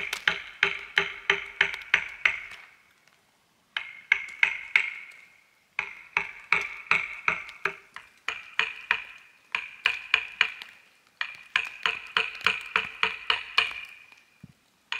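Hammering in five quick bursts of blows, about three or four a second, each blow giving a bright metallic ring.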